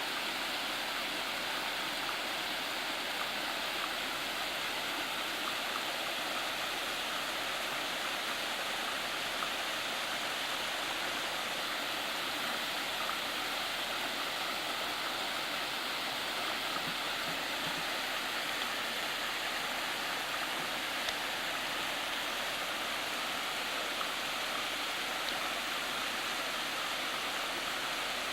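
Waterfall rushing: a steady, even wash of falling water that does not change.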